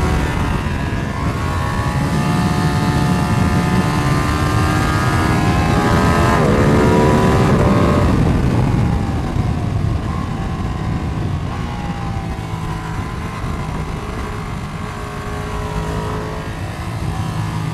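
Motorcycle engine running hard on a race track, heard from a camera mounted on the bike. The revs climb twice, most steeply about six to eight seconds in, then fall away and run lower and quieter for the rest.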